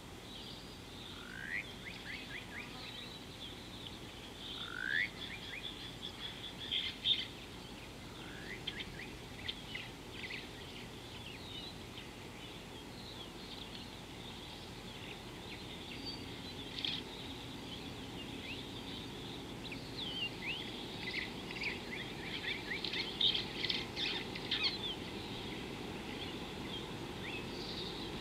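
Wild birds calling and chirping over a steady outdoor background hiss: a few short rising whistles in the first several seconds, then scattered high chirps, with a dense burst of chirping about three-quarters of the way through.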